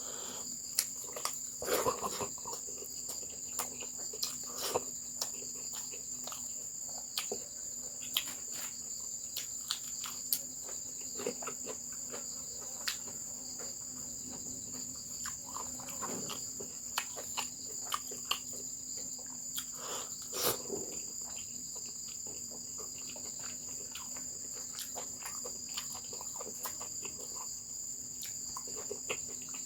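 Crickets trilling steadily, with short clicks and taps scattered throughout and a faint low hum.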